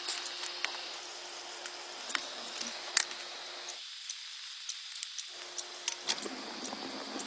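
Steady outdoor hiss with small sharp clicks and taps scattered irregularly through it; the lower part of the sound cuts out briefly just past the middle.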